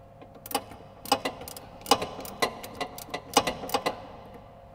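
Hand ratchet clicking as it turns a socket on a sway bar end link nut, tightening it while a wrench holds the back side. A run of sharp clicks in uneven groups, starting about half a second in and stopping shortly before the end.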